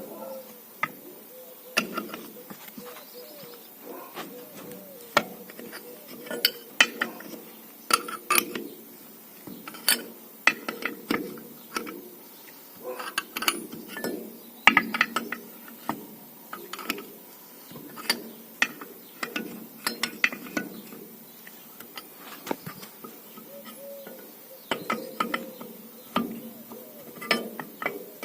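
Irregular metallic clicks, clinks and knocks from hand tools at work, coming in uneven clusters of sharp strikes.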